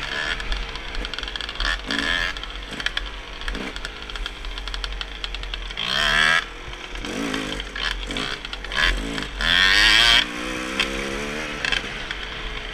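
Dirt bike engine running under load on a trail, its revs rising and falling with the throttle, with two louder bursts about six and ten seconds in.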